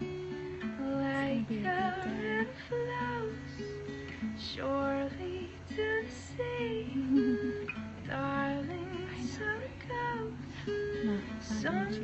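A woman singing with acoustic guitar accompaniment.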